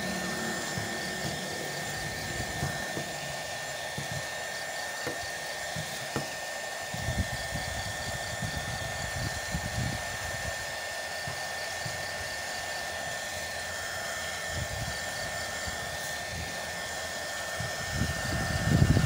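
Small handheld heat gun running steadily, its fan blowing hot air onto plastic film with a steady high whine. A louder low rustle rises near the end.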